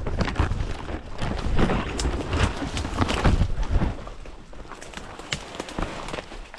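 Footsteps and brush crackling as someone pushes through dense scrub: twigs snapping, leaves rustling and heavy thumps close to the microphone. It eases off after about four seconds.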